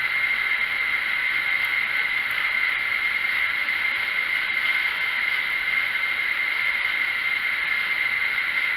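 Steady background hiss with a constant high-pitched tone through it, and a faint tick or two from small parts being handled.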